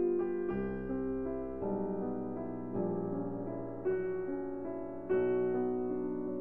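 Background music: a gentle piano or electric-piano piece, sustained chords and notes changing about every second.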